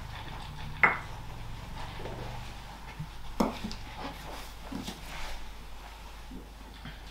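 Scattered light knocks and clicks of objects being handled in a small room. The sharpest comes about a second in and another about three and a half seconds in.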